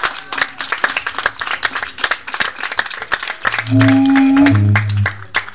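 A small crowd applauding, many hands clapping unevenly. About three and a half seconds in, a loud, low, steady tone is held for over a second in two pitches.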